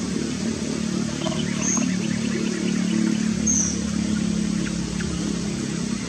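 Steady low motor-like hum, with faint bird chirps and two short high whistles about two and three and a half seconds in.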